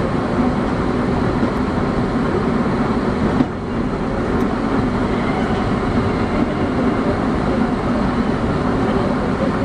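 Osaka Metro 21 series subway train running steadily, a continuous rumble of wheels on rail and traction equipment, with a brief dip and click about three and a half seconds in.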